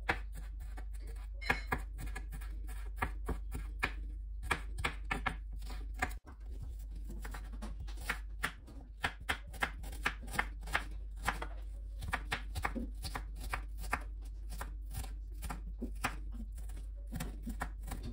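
Kitchen knife chopping capsicum and red onion on a wooden cutting board: irregular knocks of the blade on the board, one to three a second, over a steady low hum, with a brief break about six seconds in.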